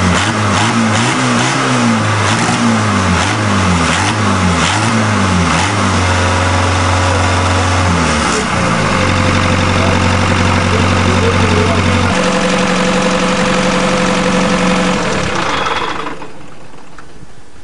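Dutch diesel engine of a mini pulling tractor being revved in quick up-and-down blips, then held at a few steady higher speeds. The engine sound stops about a second and a half before the end.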